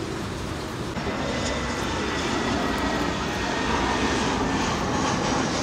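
Jet airliner engines: a steady rush with a faint high whine. About a second in, the sound becomes brighter, then grows a little louder as a twin-jet flies past low.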